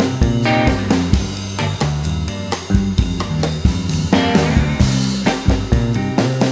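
Rock band playing an instrumental passage: drum kit keeping a steady beat with snare and bass drum under bass and guitar.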